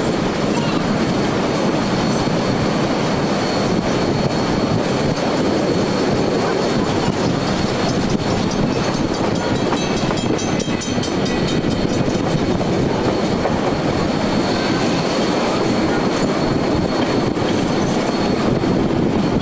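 A train running along the track: a steady rumble of wheels on rails, with a faint high squeal throughout and a stretch of clicking over rail joints about halfway through.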